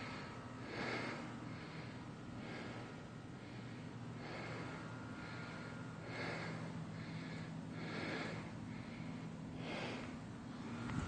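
Footsteps crunching on gravel at a walking pace, with a steady low hum underneath.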